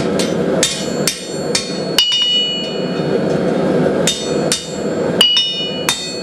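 Blacksmith's hammer striking steel on an anvil, forging a trident barb: about a dozen ringing metallic blows, roughly two a second, with a pause near the middle. A steady rushing noise runs underneath.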